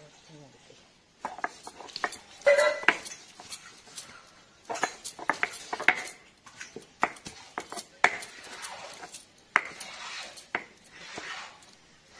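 Stone roller of a shil-nora grinding stone crushing spices on the flat stone slab: irregular sharp knocks of stone on stone with gritty scraping between them.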